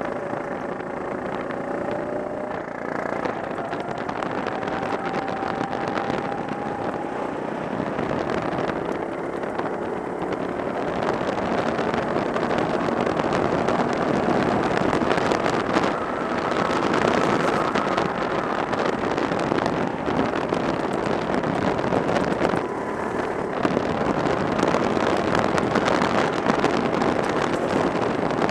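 Go-kart engine running hard during a lap, its pitch climbing over the first few seconds and rising and falling after that, with wind rushing over the microphone.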